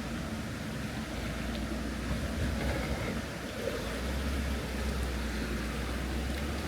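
Off-road vehicle engine running at low revs while crawling a rock obstacle: a steady low rumble.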